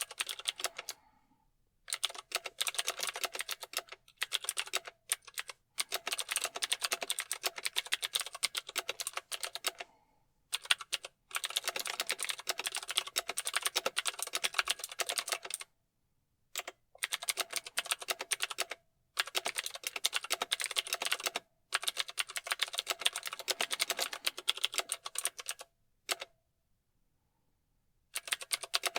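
Mechanical keyboard typing: fast runs of keystrokes lasting a few seconds each, broken by short pauses, the longest near the end.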